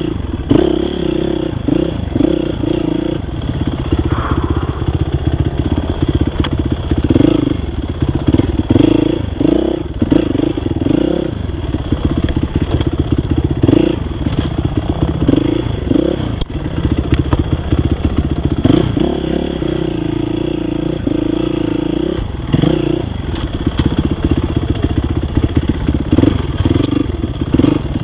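Dirt bike engine running hard under constantly changing throttle, its revs rising and falling every second or two. Clatter and knocks from the bike bouncing over rough trail ground.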